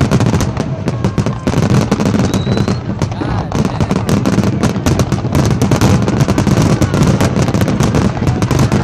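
A dense, unbroken barrage of aerial fireworks: many loud bangs and crackles each second over a low rumble, with a few short whistles.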